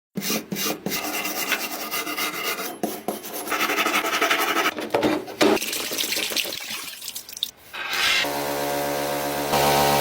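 Rapid rasping and scraping, like a part being filed or sanded by hand. About eight seconds in, a steady motor hum with a clear pitch starts up, as of an electric power tool running.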